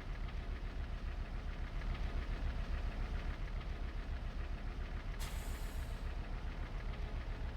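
A deep, steady rumble that throbs several times a second, heaviest in the bass, with a brief hiss about five seconds in.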